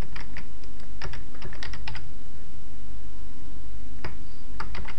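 Computer keyboard typing: a quick run of keystrokes for about two seconds, a pause, then more keystrokes near the end, over a steady low hum.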